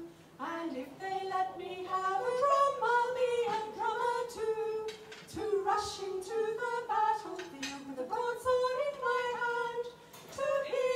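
A small group of voices singing an English folk song unaccompanied, in sung phrases with brief breaths between them.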